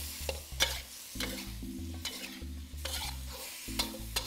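Metal wok spatula scraping and clattering against the wok in quick repeated strokes as beef, asparagus and bell peppers are stir-fried, with a steady sizzle underneath as the cornstarch-thickened sauce glazes the food.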